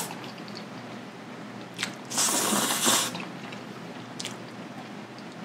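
A person slurping Chapagetti black-bean-sauce noodles: one loud slurp about two seconds in that lasts under a second, with quieter chewing around it.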